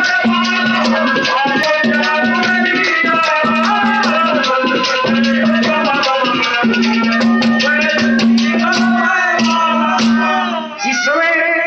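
Haryanvi ragni accompaniment: harmonium melody over a steady drone, with hand drums and jingling rattle-like percussion keeping a quick rhythm. The music breaks off briefly near the end.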